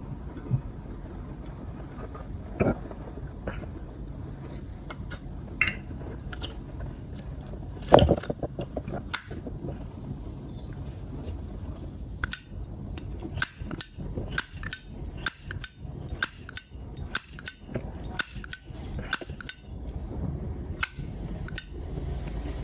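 Zippo lighter being handled: a few scattered knocks, then its metal lid flicked open and snapped shut over and over, about two sharp metallic clinks a second in the second half.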